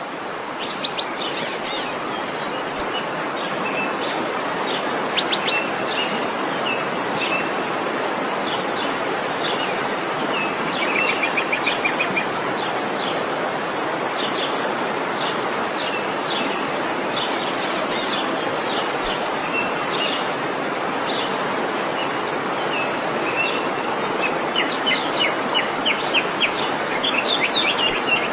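Waterfall rushing steadily, with small birds chirping over it throughout, the chirps coming thicker near the end.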